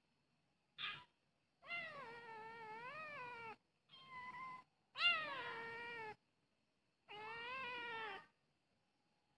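A kitten meowing repeatedly: five meows, a short one about a second in, then longer drawn-out calls of one to two seconds each, their pitch wavering up and down.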